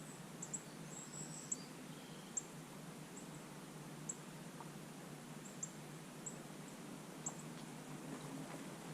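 Faint outdoor ambience: a steady hiss with short, high chirps every second or so at uneven intervals.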